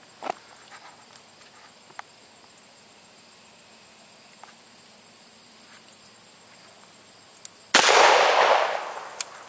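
A single shot from a Smith & Wesson .38 Special revolver near the end: a sudden crack whose noise trails off over about a second. Before it there is only faint outdoor background with a steady high tone.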